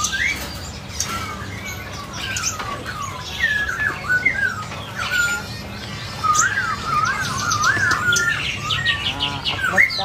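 Many caged songbirds chirping and calling over one another: short whistled notes that rise and fall, and a quick trill near the end.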